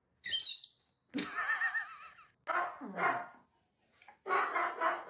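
Four bark-like animal calls in a row. A short high squeak comes first, then a longer wavering cry about a second in, a falling call near the middle and a harsher call near the end.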